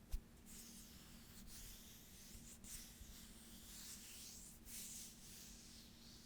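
Hands rubbing close to the microphone: soft, high swishing skin friction that swells and fades in waves, after a single click at the very start.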